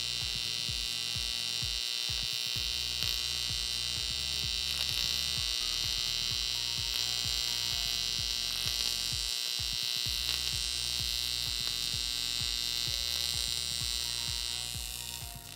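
TIG welding arc on an aluminum swing-arm part: a steady, high buzz that stops about a second before the end as the arc is switched off. Background music with a bass beat plays underneath.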